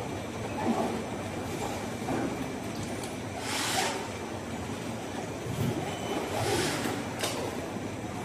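Assembly-line factory noise: a steady machine hum with faint high whistles, broken by two short hisses about three and a half and seven seconds in.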